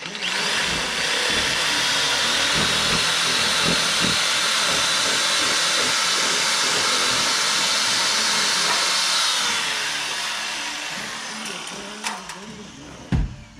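Electric angle grinder cutting metal: a loud, steady hissing whine that runs for about ten seconds, then dies away as the motor winds down. Two sharp clanks follow near the end.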